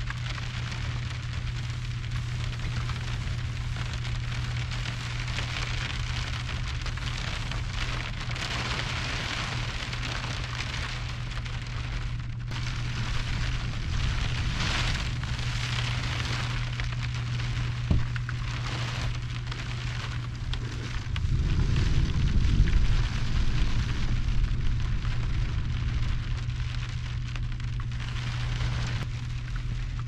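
Heavy rain pouring down on the roof of a pickup truck's covered bed, heard from inside as a dense, uneven hiss that swells and eases, over a steady low hum. About twenty seconds in, a louder low rumbling lasts a few seconds.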